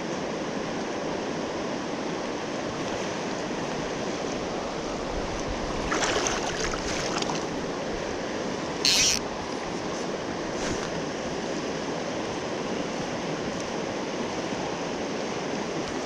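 Mountain stream rushing over rocks in a steady wash of water noise, with a short run of faint clicks about six seconds in and a brief sharp hiss about nine seconds in.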